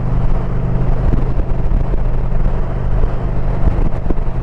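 2022 Indian Pursuit's PowerPlus V-twin running steadily at cruise, with wind and road noise rushing over the camera microphone.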